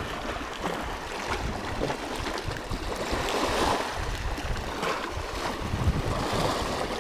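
Sea waves washing and breaking against the rocks below, with wind buffeting the microphone.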